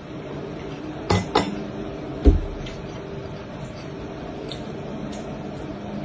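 Chopsticks and a small porcelain cup clinking twice about a second in, then a dull knock just after two seconds as tableware is set down, over a faint steady hum.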